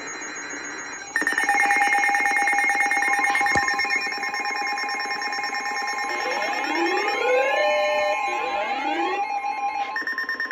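Several emergency alert tones sounding over one another. Steady alarm tones with a rapid buzzing pulse start about a second in, rising sweeping tones join midway, and a fast pulsing beep runs near the end. The tones lead into a tornado warning broadcast.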